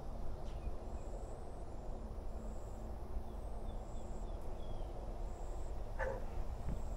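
Outdoor garden ambience: a steady low rumble, with faint high chirps repeating about once a second and a short quick run of small bird chirps in the middle.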